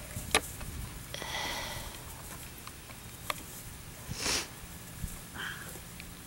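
A sharp snap about a third of a second in and a fainter one about three seconds later, with breathy swishes between, from a burlap rag tied to a stick being swung and slapped against the grass.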